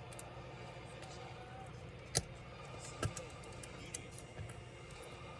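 Scattered sharp clicks and taps of small tools and laptop parts being handled during disassembly, the loudest about two seconds in, over a steady low hum.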